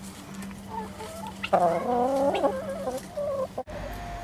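Mixed flock of free-range chickens and helmeted guineafowl calling: scattered clucks and short calls, with a louder run of calls about a second and a half in. The sound breaks off abruptly near the end.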